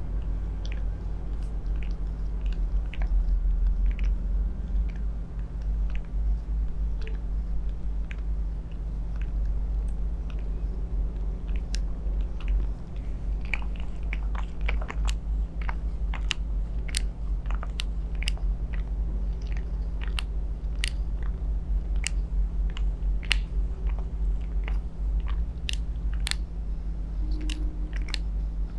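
Metal twin-ball facial roller worked over a face: scattered sharp clicks and crackles, coming more often in the second half, over a steady low hum.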